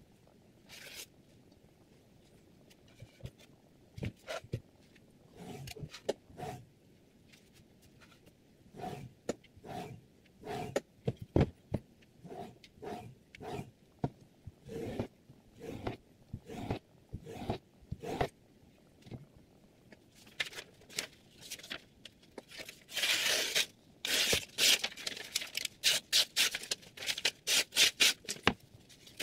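A series of short, dull rubbing strokes, then from about two-thirds of the way in a quick run of crisp, papery slicing and tearing sounds as a freshly sharpened kitchen knife edge cuts through a sheet of paper.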